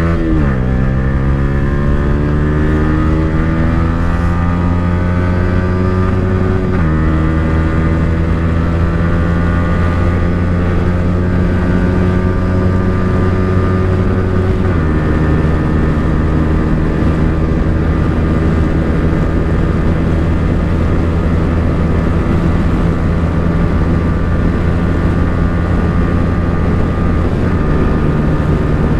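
Yamaha R15 V3's single-cylinder engine through an aftermarket Akrapovic exhaust, running steadily while riding. The note drops sharply at the start, climbs slowly, then steps down about seven seconds in and again about fifteen seconds in.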